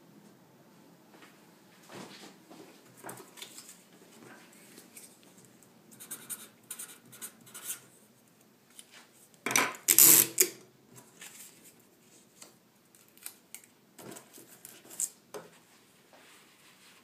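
Paper-craft handling noises: paper rustling and scratching with scattered small clicks, and a louder burst of rustling about ten seconds in.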